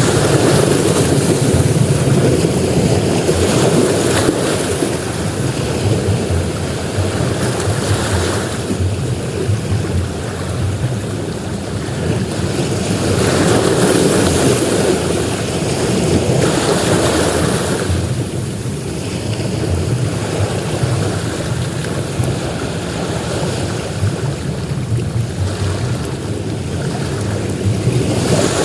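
Surf breaking on a sandy beach, a continuous rush of waves that swells and eases every few seconds.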